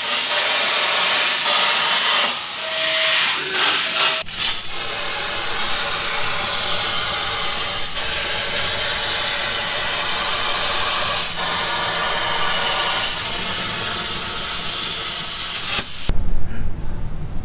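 CNC plasma table's torch cutting: a loud, steady air-and-arc hiss that turns fuller about four seconds in and cuts off suddenly near the end as the cut finishes.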